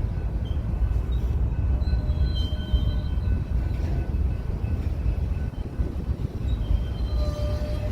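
Freight train cars rolling past with a steady low rumble of wheels on rail, with brief faint high-pitched tones here and there.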